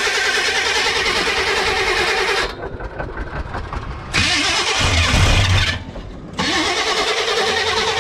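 Starter cranking the 1976 GMC's 454 big-block V8 in repeated cold-start attempts, pausing about two and a half seconds in and again near six seconds, with a louder, deeper stretch in between, as the engine struggles to catch. It is a hard cold start in sub-zero weather with a choke that doesn't work.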